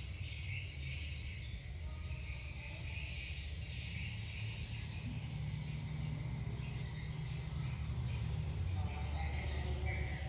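Outdoor ambience of insects chirring in a patchy high haze, over a steady low rumble.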